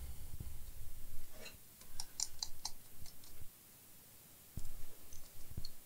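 A quick run of four or five light, sharp clicks about two seconds in, with soft handling rumble before them and a few duller knocks near the end.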